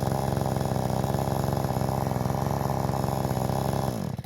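Forest King 45cc two-stroke chainsaw idling steadily, then shut off: its pitch sags and it dies about four seconds in.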